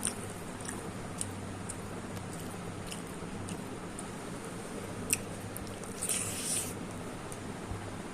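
A person eating: faint chewing and small mouth clicks over a steady low hum, with a sharp click about five seconds in and a short crisp crunch about six seconds in.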